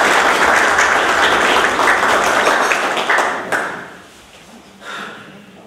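Applause from a roomful of people, dying away about three and a half seconds in.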